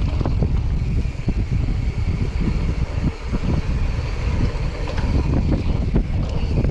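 Wind buffeting the microphone of a camera on a moving mountain bike, a loud low rumble, with frequent knocks and rattles from the bike going over rough trail.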